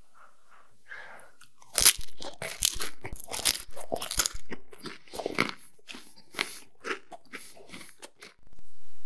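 Biting into a chocolate-coated wafer cone close to the microphone: a run of loud, crisp crunches starting about two seconds in, then softer chewing that dies away near the end.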